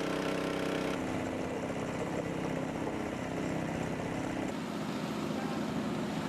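Boat engine running steadily with a low hum, its sound changing abruptly about a second in and again at about four and a half seconds.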